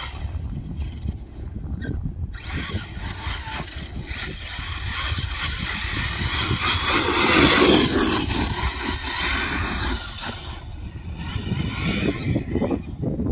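Arrma Kraton radio-controlled truck driving over pavement and dirt, its electric motor whining over tyre noise. It grows louder as the truck comes close, is loudest about seven or eight seconds in, then drops off as it drives away.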